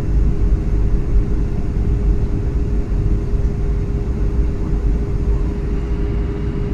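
Boeing 757-200 engine and airflow noise heard from inside the passenger cabin: a steady low rumble with a constant hum over it.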